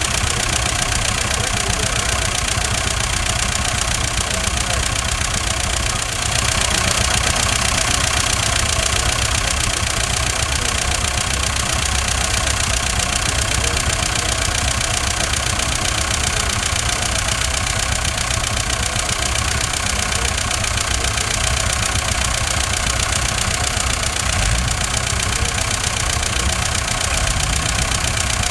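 Tractor diesel engine running steadily under the load of a tractor-mounted backhoe digging sand.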